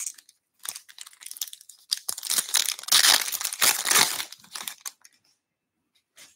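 Foil wrapper of a 2023 Bowman Baseball hobby card pack being torn open and crinkled by hand. The crinkling and tearing are loudest about halfway through and die away after about five seconds.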